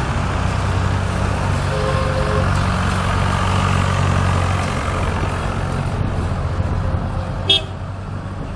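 A vintage tractor and classic cars drive past one after another, their engines running loud and steady. A short two-note horn toot sounds about two seconds in, and a brief sharp sound comes near the end.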